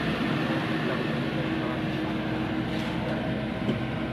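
Excavator's diesel engine running steadily while it works, with a few faint knocks in the second half.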